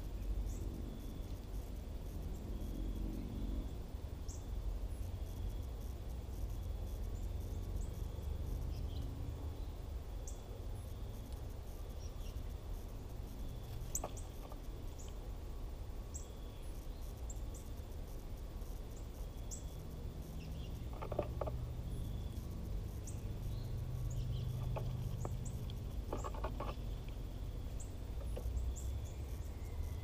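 Garden ambience at dusk: a steady high insect trill under scattered short, high bird chirps, over a low background rumble.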